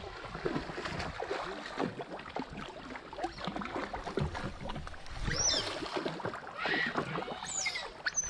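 Water splashing and churning as tethered smooth-coated otters swim and thrash in the river, with a few quick, high chirps in the second half.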